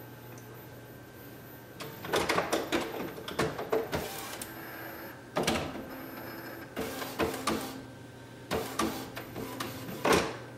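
Epson WorkForce WF-7710 inkjet printer's mechanism running through its start-up routine after the cartridges are reset. The print-head carriage and feed motor move in several bouts of whirring and clicking, starting about two seconds in, with a sharp clack near the end.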